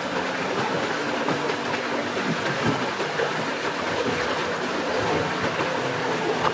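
Fast-flowing stream rushing steadily.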